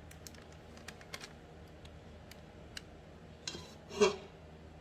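Light scattered clicks and taps of a spatula scooping thick cake batter from a stainless steel mixing bowl into a plastic bag, with a louder scrape against the bowl about four seconds in.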